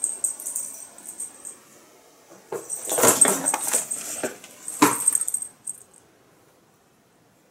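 Two house cats fighting: loud bursts of scuffling and knocking as they wrestle on the floor. It is heaviest between about two and a half and six seconds in, then stops.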